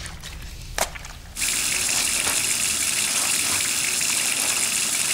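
Kitchen tap turned on about a second and a half in, its water then running steadily into the sink and over a cloth being rinsed under the stream.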